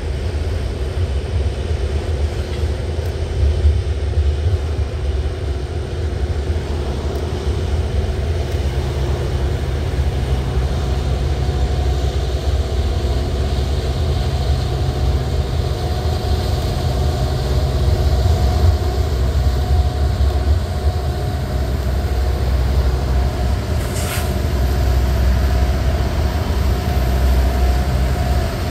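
Coal train of hopper cars rolling past with a steady wheel-and-rail rumble, joined by the drone of three EMD SD70MAC diesel locomotives that grows in the second half as they pass. There is one short sharp click a few seconds before the end.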